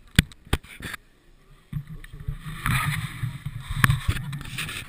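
Handling noise on a mounted action camera: two sharp knocks near the start, then, from under two seconds in, a low rumble with scattered knocks as the camera is moved and tipped up.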